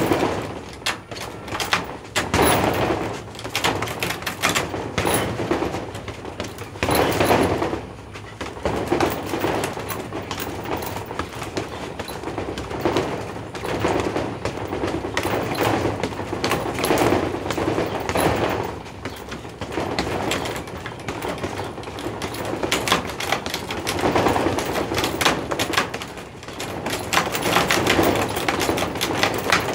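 Fists in hand wraps landing on a heavy punching bag, a fast irregular run of thuds and slaps in flurries with short breaks.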